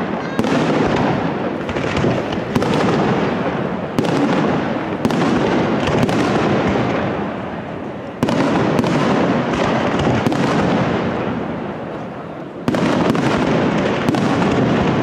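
Aerial firework shells launching and bursting in a continuous barrage, a dense crackle of reports with sharp new volleys at about eight and about thirteen seconds in.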